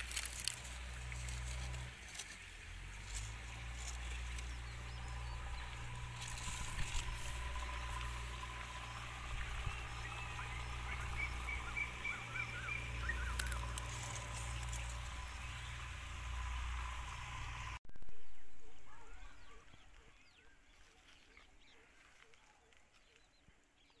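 Outdoor garden ambience with a steady low rumble, scattered rustles and clicks as a hand handles the leaves and fruit of a guava tree, and a bird calling in a quick run of chirps about halfway through. Near the end the sound cuts, swells briefly, then drops to a much quieter ambience.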